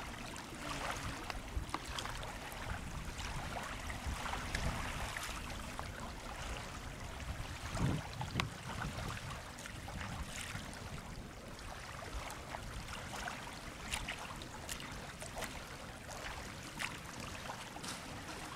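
Small river waves lapping against a sandy bank, a steady watery wash with a low rumble underneath and scattered small clicks; a louder thump about eight seconds in.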